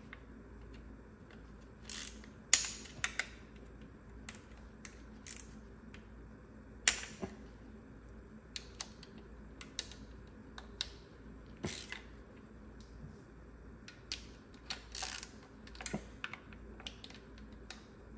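Hand tools working T30 Torx bolts loose from a plastic engine cover: irregular sharp clicks and clinks of a ratchet and metal tools, with a few louder knocks.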